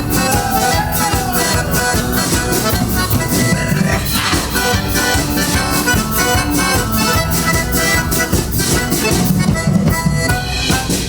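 Band playing an instrumental break between sung verses: accordion carrying the tune over a steady drum beat with bass and guitar.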